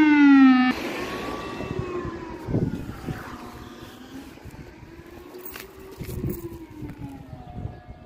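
Civil-defence siren wailing with a slowly falling and rising pitch during the annual siren test. Under a second in it suddenly drops to a fainter, more distant siren that keeps rising and falling, with a few short knocks.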